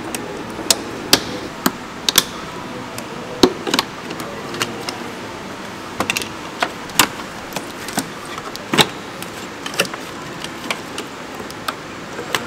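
Irregular sharp clicks and light knocks of plastic electrical connectors, clips and wiring harness being unclipped and handled in a car's engine bay, over a steady background hiss.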